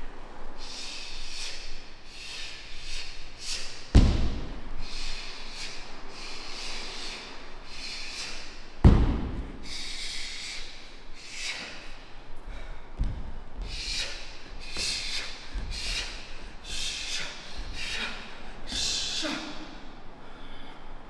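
Kung fu practitioners moving through a form: many short, sharp hissing bursts of breath or movement, with two heavy floor thuds from stamping feet about four and nine seconds in.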